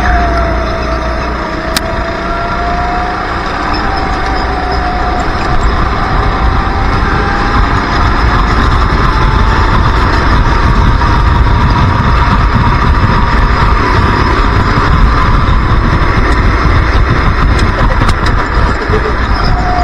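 Racing kart engine heard from the driver's seat, low in revs coming out of a corner, then climbing steadily in pitch and holding high revs down the straight, dropping again near the end as the kart slows for the next corner. A heavy low wind rumble on the microphone runs underneath.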